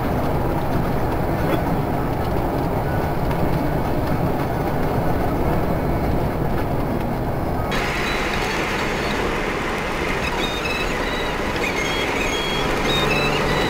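Steady rumble of a truck's engine and tyres heard from inside the cab while driving. About eight seconds in the sound changes abruptly, becoming brighter, with short high-pitched blips over the rumble.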